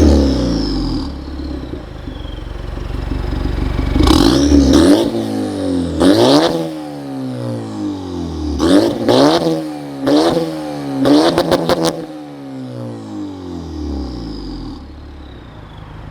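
Acura RDX's turbocharged 2.3-litre four-cylinder on a catback exhaust and catless downpipe, pulling hard through several rev climbs and shifts. Falling turbo whistles follow the lifts, and a quick string of exhaust pops comes near the end.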